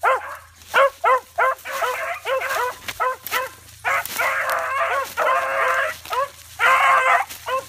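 Seven-month-old pups giving voice on a chase: a quick run of short, rising-and-falling yips, about three a second, broken by three longer drawn-out cries after about four seconds.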